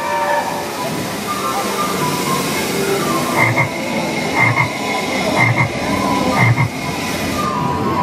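Frog croaking: four short croaks about a second apart in the second half, each with a doubled pulse.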